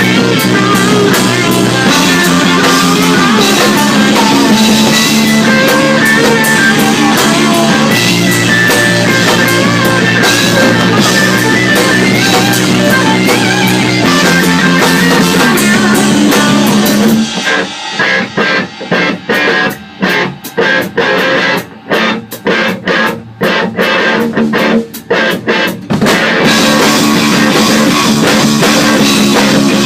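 Rock music with electric guitar and drum kit. About halfway through it breaks into a run of short stop-start hits with brief gaps between them, then the full band comes back in.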